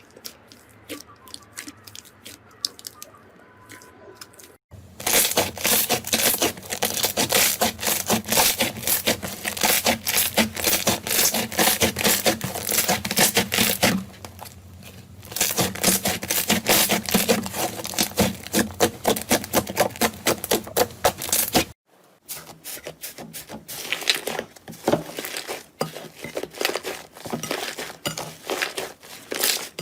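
Slime being squeezed, pressed and stretched by hand, giving a dense run of small crackling and popping clicks. The sound changes abruptly twice, getting much louder after about four seconds and breaking briefly about 22 seconds in.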